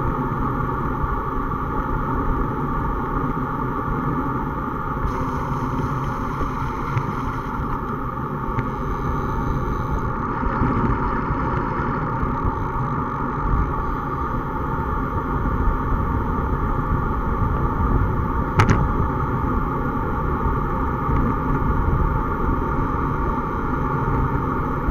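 Steady road and wind noise picked up by a camera mounted on a road bicycle riding at about 30 km/h: tyre rumble and wind on the microphone, with one sharp knock about three-quarters of the way through, like a jolt from the road surface.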